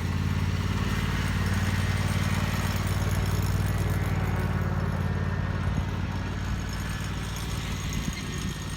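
A vehicle engine running at a steady speed, easing off slightly near the end.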